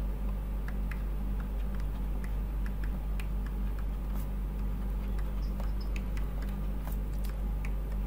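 Steady low electrical mains hum on an open microphone, with faint scattered ticks and clicks.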